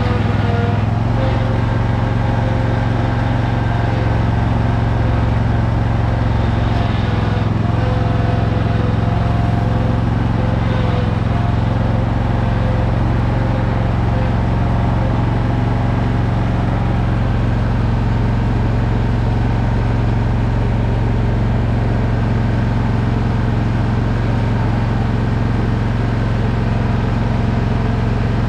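Zero-turn mower's engine running steadily at a constant speed while the mower pushes a heavy chicken coop across the ground.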